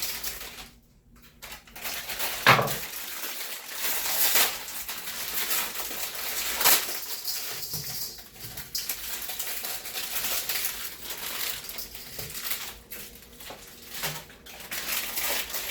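Plastic instant-noodle packets being torn open and handled, crinkling and rustling, with small sachets and dishes clattering. Two sharp knocks stand out, one a couple of seconds in and a louder-looking one past the middle.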